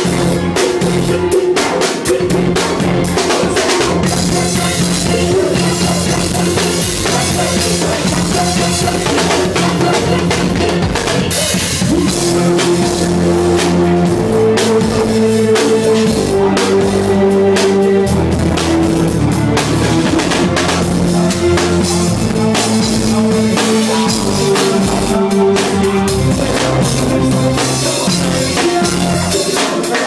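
Live band music with the drum kit loud and close: kick, snare and cymbal hits over held low bass and keyboard notes.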